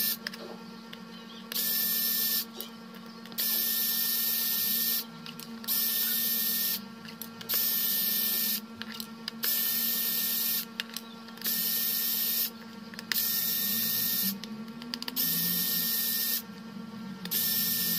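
Small electric precision screwdriver running in short whirring bursts of about a second each, about nine times with brief pauses, as it backs out the tiny screws of a phone's motherboard cover.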